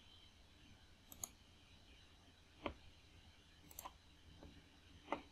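Computer mouse clicking: a handful of short, sharp clicks, some in quick pairs, over faint room tone.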